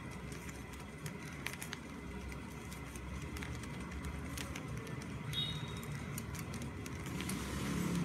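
Light plastic clicks of a 3x3 Rubik's cube's layers being twisted by hand, coming irregularly, over a steady low background rumble.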